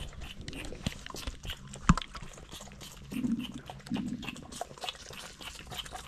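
Orphaned lambs suckling from feeding bottles: a run of quick, irregular wet sucking and smacking clicks, with one sharp knock about two seconds in.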